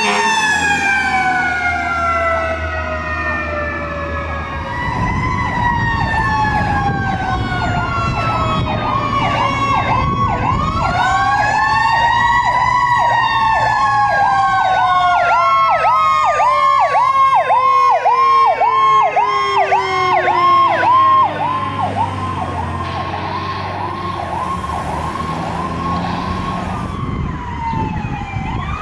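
Fire apparatus sirens: an electronic Powercall siren alternating a slow rising-and-falling wail with a fast repeating yelp, over another siren winding slowly down in long falling tones. The yelp stops about three-quarters of the way through, and a fresh siren starts to rise near the end.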